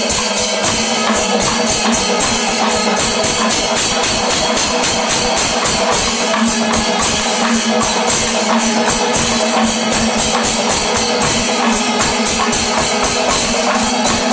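Panchavadyam, the Kerala temple percussion ensemble, playing at full tilt: dense, fast strokes of timila drums over the constant clash of ilathalam cymbals, unbroken and loud, at the kalasam, the quickening close of its second tempo stage.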